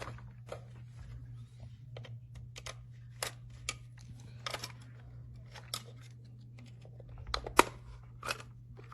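Irregular small plastic clicks and taps of a small screwdriver and battery cover being worked open on a toy RC car's battery compartment, with a sharper knock about seven and a half seconds in.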